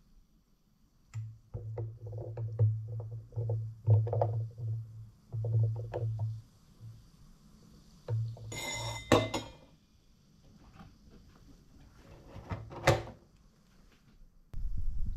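Bar spoon stirring ice in a highball glass of whisky and soda: a run of soft, rhythmic knocks for several seconds, then a brighter rattle of clinks about eight to nine seconds in, and one sharp clink near the end.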